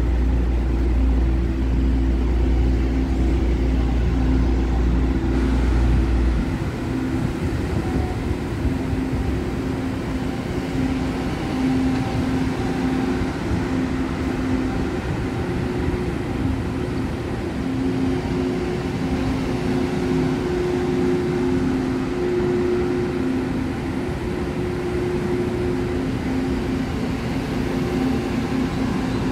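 A train at a station platform running with a steady humming drone, a deep low rumble under it stopping about six seconds in.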